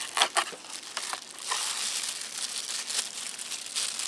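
Packaging crinkling and rustling as a wrapped part is unwrapped by hand, with a few sharp crackles near the start.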